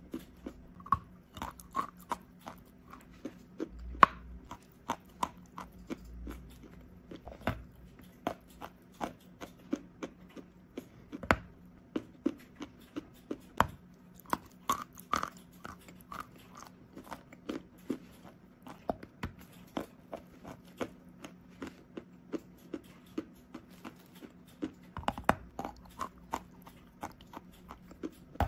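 A lump of white chalk being bitten and chewed close to the microphone: dense, crisp crunches two or three times a second, with a few louder bites.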